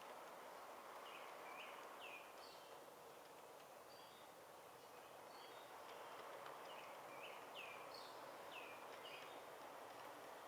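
Faint bird chirps: short calls that drop in pitch, repeated many times over a steady faint hiss.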